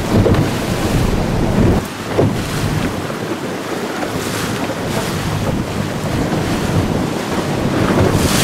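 Wind buffeting the microphone over the rush and splash of choppy seawater from a small boat under way, with the low rumble of the wind heavier in the first couple of seconds.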